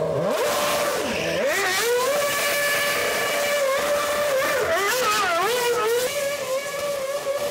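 Red Bull RB8 Formula 1 car's naturally aspirated 2.4-litre Renault V8 revving hard while spinning donuts, the rear tyres spinning and smoking. The engine pitch dips about a second in, climbs back, then holds high and wavers with the throttle.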